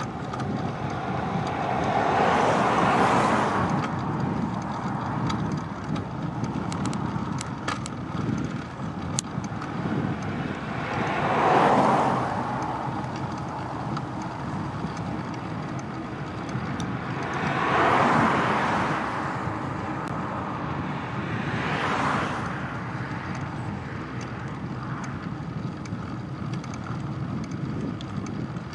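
Cars passing on a country main road: four passes, each swelling up and fading away over a steady background rush of road noise.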